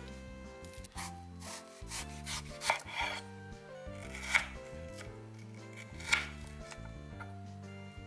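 Small metal shape cutters pressed through a raw apple slice onto a bamboo cutting board: several crisp cuts and knocks at irregular intervals, the sharpest about four and six seconds in. Soft background music runs underneath.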